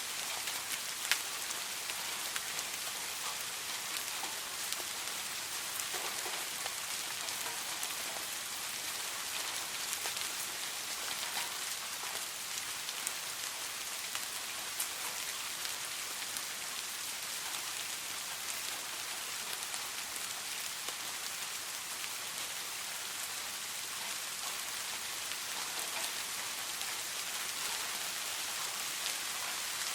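Soft rain falling steadily: an even hiss of many small drops, with scattered sharper drop ticks and one louder tick about a second in.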